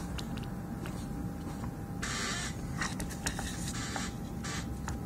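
Short bursts of scraping and rustling, with a few clicks, as a power supply circuit board is handled and shifted on a wooden workbench, over a steady low background hum.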